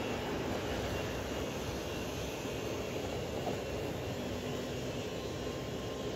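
Steady outdoor rushing noise, even throughout with no distinct events.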